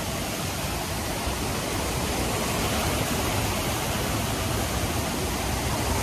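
Steady rush of water cascading over a waterfall, heard close, growing a little louder near the end.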